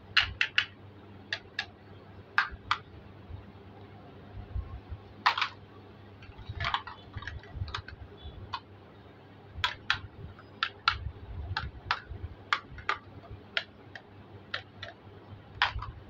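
Hollow plastic toy fruit pieces clicking and tapping as they are handled, pressed together and set down. A scatter of sharp clicks, some in quick pairs or threes.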